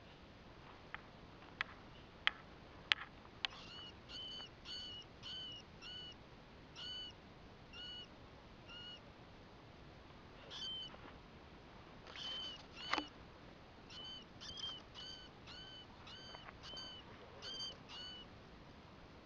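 Baby rat squeaking: short high squeaks repeated about twice a second in two long runs, with a few sharp clicks in the first few seconds.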